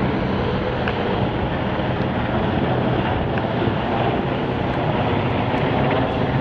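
Military helicopter flying overhead, a steady rumble of rotors and turbine engines.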